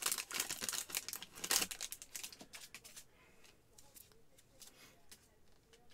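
A foil trading-card pack wrapper being torn open and crinkled by gloved hands, a dense crackling for about two seconds that thins out to faint rustles of the cards being slid out.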